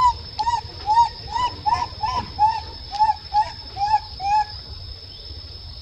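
Baby macaque giving a rapid series of about a dozen short coo calls, two to three a second, each arching up and down in pitch, stopping about four and a half seconds in: an infant calling for its mother.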